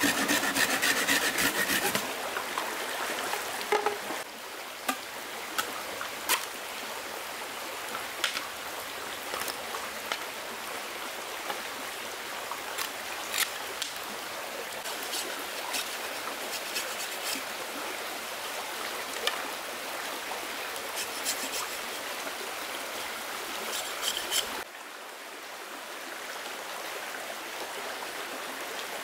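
Running stream water with scattered sharp clicks and knocks, louder and more crackling for the first couple of seconds. Near the end it changes abruptly to a steadier, quieter rush of water alone.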